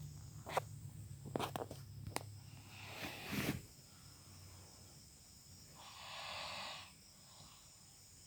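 A person snoring: a low drone with several sharp clicks, ending in a strong burst of breath about three and a half seconds in, followed by a breathy exhale about six seconds in.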